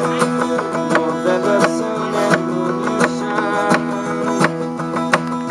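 Acoustic guitar strummed in a steady rhythm, playing a song's instrumental intro.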